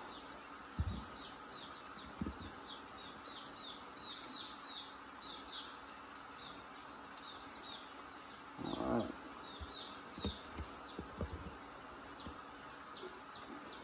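Baby chicks peeping in the background: a steady run of short, high, falling peeps, about three a second. A few low knocks come through now and then.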